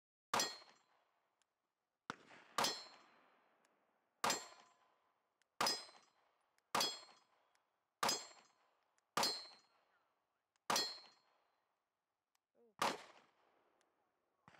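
Compact 9 mm carry pistol firing slow, aimed single shots, about nine in all, one every second or two. Each shot is followed by the short metallic ring of a steel target being hit.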